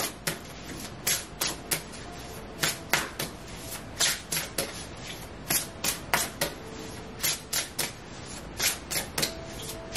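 Oracle cards being shuffled by hand: a steady run of crisp, irregular card snaps and clicks, about two or three a second.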